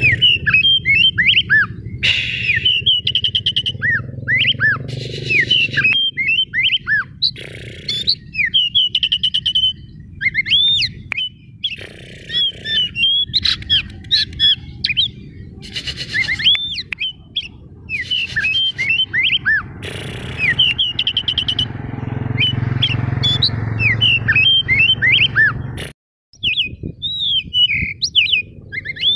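Oriental magpie-robin (white-breasted kacer) singing loudly in fast, varied phrases of rising and falling whistles, rapid trills and harsh notes, with short pauses between them, over a low steady rumble. The sound cuts out completely for a split second near the end.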